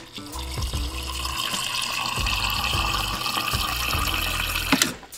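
Refrigerator door water dispenser running a steady stream into a plastic cup, stopping near the end.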